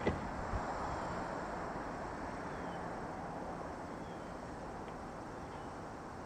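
Steady outdoor rushing noise picked up by a point-and-shoot camera's built-in microphone raised on a pole at the roof gutter, with a sharp knock at the start and a fainter one about half a second later.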